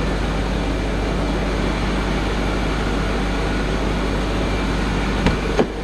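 Steady running noise from a Mercedes C230's engine bay with the AC running, during a refrigerant recharge: engine and AC/cooling-fan noise blended into an even rush. Two short clicks sound near the end.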